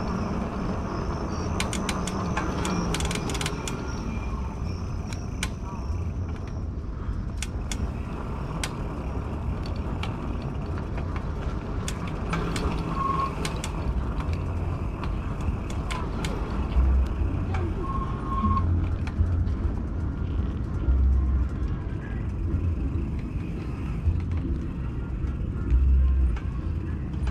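Riding noise from a fat-tire e-bike under way: an uneven low rumble of wind and tyres, with scattered clicks and two short high beeps near the middle.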